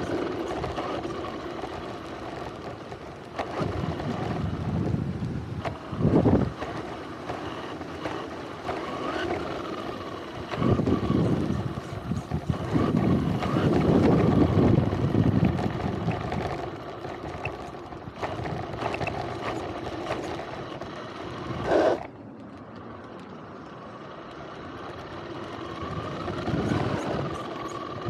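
RC car driving over pavement, heard from a camera mounted on the car: a motor whine that rises and falls under surging tyre, gravel and wind rush, with two sharp knocks, about six seconds in and near the twenty-two-second mark.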